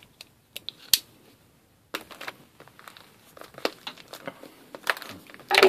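A few sharp clicks in the first second, then plastic shrink wrap on a hockey card hobby box crinkling and tearing as it is slit open with a blunt folding knife.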